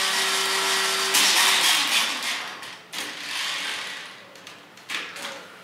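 Battery-powered spin motor in a Jungle Pride Megazord toy, whirring steadily with a gear hum as it turns the arms with the shark swords. It winds down and stops within the first two seconds, followed by fainter mechanical noise.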